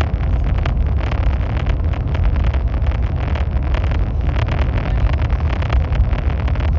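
High-speed train running at speed: a steady, loud, deep rumble with a dense rushing noise and fine rattling ticks.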